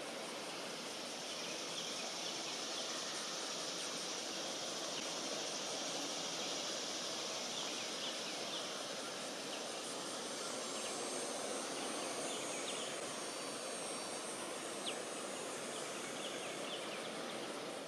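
Outdoor ambience: a steady, high-pitched insect drone with short, high chirps scattered through it and one slightly louder chirp near the end.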